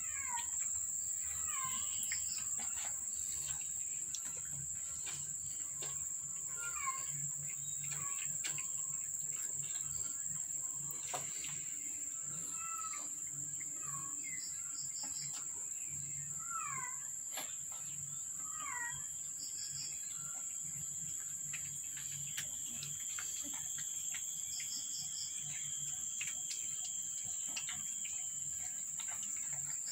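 Steady high-pitched insect drone, with a bird repeatedly giving short falling calls, one every second or two, that stop about two-thirds of the way through.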